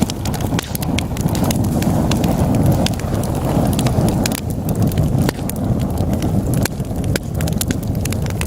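Wood logs burning in a fireplace: a steady low roar of flames with frequent, irregular sharp crackles and pops.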